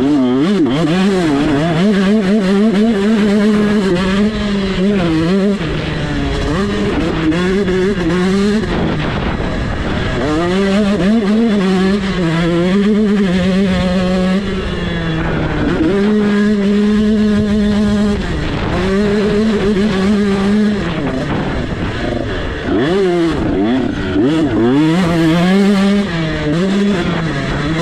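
GasGas 125cc two-stroke motocross engine at race speed, its pitch climbing and falling back over and over, with several short drops where the throttle is shut off.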